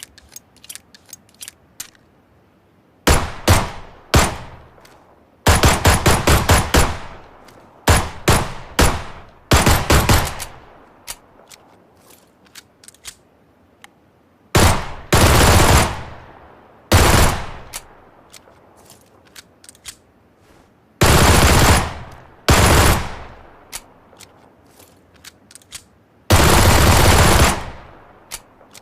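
Gunfire sound effects: a few light mechanical clicks, then single gunshots, rapid strings of shots and several long automatic bursts, separated by short pauses.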